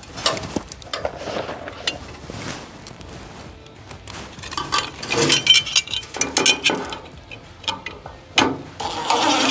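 Cordless drill/driver driving hex-head trough screws through a metal downspout pipe strap into a pre-drilled mortar joint, in short runs with clicks and clinks of the strap and screws being handled. A longer, steadier run of the driver starts near the end.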